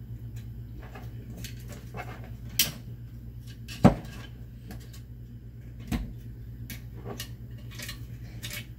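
Scattered metal clinks and knocks as parts and tools are handled in a UFP A-60 surge brake actuator during disassembly, the sharpest knock about four seconds in.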